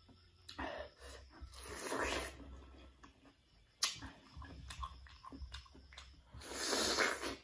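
Close-miked eating of young pineapple: bites and chewing mouth sounds, with a sharp click about four seconds in and a loud, noisy bite lasting under a second near the end.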